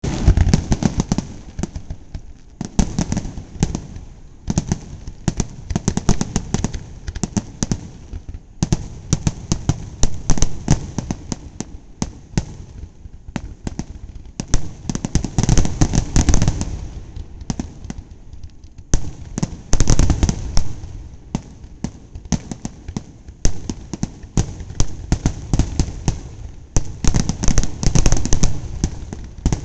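Fireworks display: aerial shells bursting with sharp bangs, and salvos of rapid crackling that come in dense clusters several times, with short lulls between.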